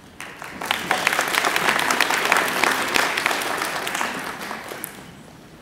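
Audience applauding, building quickly just after the start and dying away near the end.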